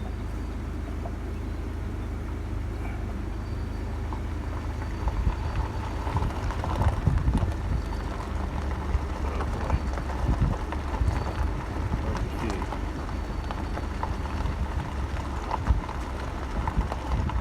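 Car moving slowly, heard from inside the cabin: a steady low engine and road rumble, with irregular knocks and rattles from about five seconds in.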